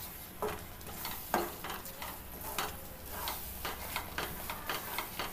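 Wooden spoon stirring and scraping thick, bubbling ash-gourd halwa around a pan, with irregular scrapes and clicks, one sharper knock about a second in, and a light sizzle of hot ghee underneath. The halwa has cooked down to the stage where it comes away from the pan without sticking.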